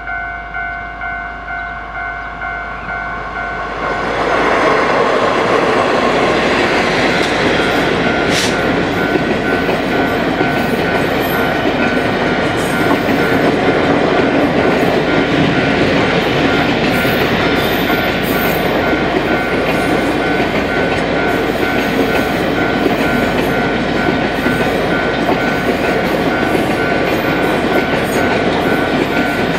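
Level-crossing warning bell ringing in steady pulses, about two a second. About four seconds in, a freight train of covered hopper wagons arrives and runs through the crossing, its wheels loud on the rails, with the bell still ringing over it.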